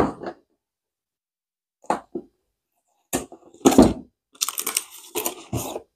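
Cardboard packaging of a set-top box being opened by hand: scattered crackles, scrapes and knocks, busiest in the second half.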